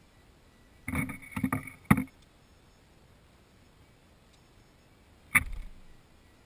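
Quick clicks and knocks from hand work at a sport motorcycle's rear axle and brake caliper during safety wiring: a short cluster about a second in, ending in a sharp snap near two seconds, then a single heavier knock with a low thud about five and a half seconds in.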